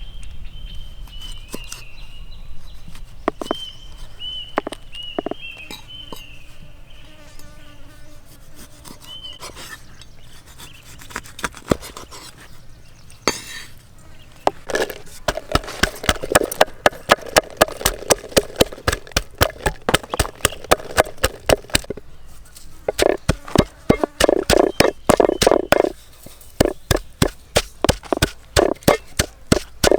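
Rapid knife chopping on a cutting board, about three to four strokes a second, in two runs starting about halfway, with a short pause between them. Before that, high chirping calls and a few single knocks.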